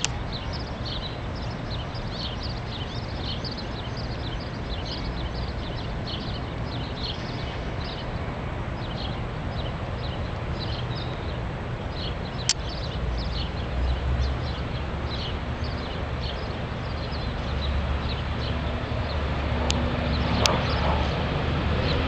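Outdoor ambience: a steady low rumble like wind on the microphone, growing louder near the end. Over it run rapid short high chirps, about two or three a second, that thin out in the last few seconds.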